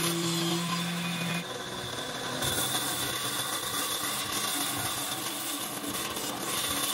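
Band saw running steadily, its blade cutting through wooden blocks fed by hand.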